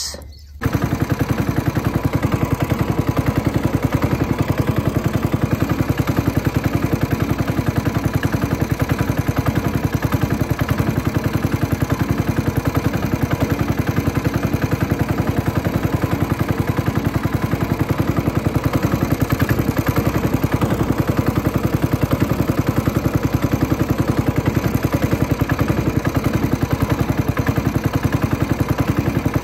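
A small boat's engine running steadily at an even speed, with a fast, even pulse, pushing the boat along for trolling. It comes in abruptly about half a second in.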